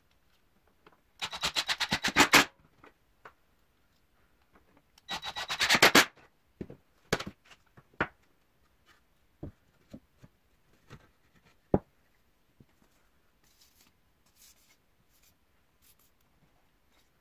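Cordless impact driver hammering pocket-hole screws into a pine frame joint in two short bursts of rapid rattling impacts. These are followed by a few scattered clicks and knocks from a bar clamp and boards being handled.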